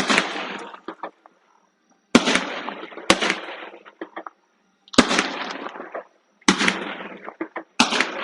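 Aerial fireworks bursting: six sharp bangs at uneven intervals, each trailing off in a fading crackle.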